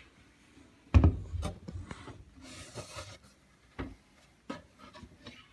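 IKEA particleboard shoe cabinet being lifted and shifted: a heavy thud about a second in, then wood rubbing and scraping, and two lighter knocks later on.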